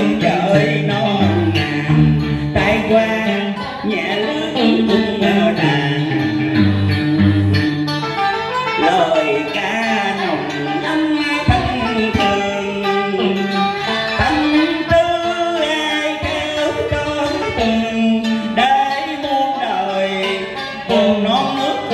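Vietnamese đờn ca tài tử music: a man sings in the southern tài tử style, with gliding, ornamented phrases, accompanied by a plucked đàn tranh zither and an electric guitar.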